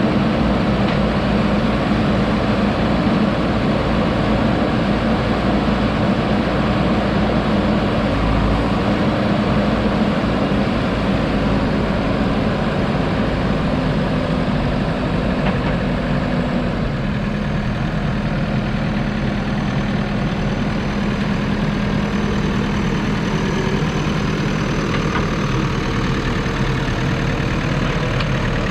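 JCB 3DX Super backhoe loader's diesel engine running steadily. Its speed eases down in a few steps over the first half, then holds at a lower, steady idle.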